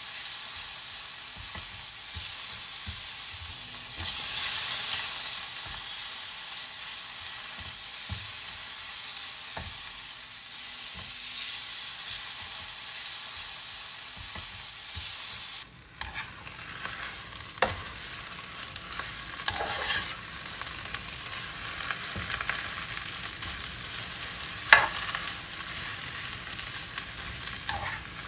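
Food sizzling in a frying pan, a steady hiss. About sixteen seconds in it cuts to quieter frying, with scattered clicks and scrapes from a spatula stirring leaves, dried chillies, shallot and garlic in a nonstick pan.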